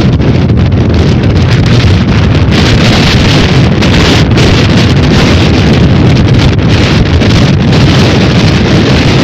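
Hurricane-force storm wind buffeting the microphone: loud, continuous wind noise, heaviest in the low range and flickering with gusts, with a stronger gust about three seconds in.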